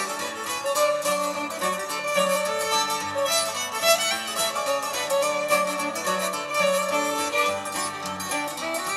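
Hammered dulcimer, fiddle and acoustic guitar playing a reel together: quick struck dulcimer notes and bowed fiddle melody over strummed guitar.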